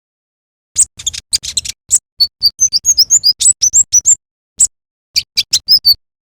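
Konin (kolibri ninja) sunbird in full song: a fast, busy run of short, high chirps and quick up-and-down whistled notes, starting about a second in after silence, with a brief pause near two-thirds of the way through.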